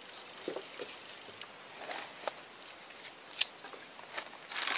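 Dry grass and pandan leaves rustling and crackling, with scattered sharp clicks and a denser crackle near the end, over a steady high insect whine.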